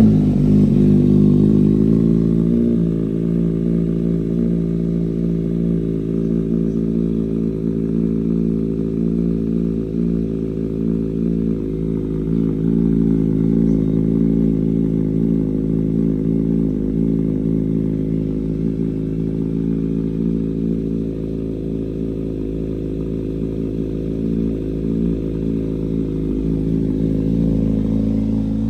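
Kawasaki Z900 inline-four engine idling steadily through its exhaust. It has just caught and drops slightly in level over the first couple of seconds.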